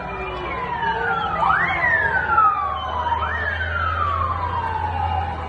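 Emergency vehicle siren, its pitch rising sharply and then falling slowly, repeating about every one and a half seconds.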